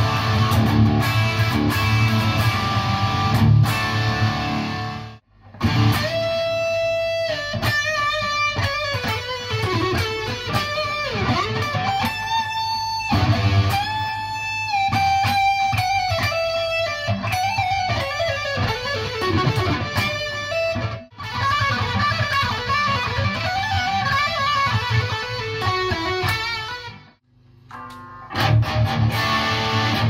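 PRS SC 594 electric guitar played through a PRS MT15 tube amp head with 5881 power tubes: dense chords first, then single-note lead lines with bent notes. The playing breaks off briefly about five and twenty-one seconds in. After a short gap near the end, a Mayones Hydra Elite is played on the amp's lead channel.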